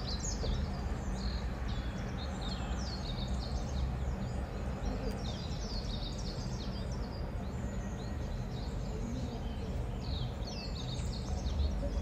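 Budgerigars chirping: a continuous stream of short, high, falling chirps, over a low steady hum.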